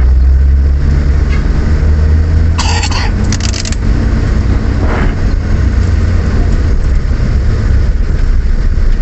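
A car driving, with a steady low rumble from the engine and road, and two short hissing bursts about three seconds in.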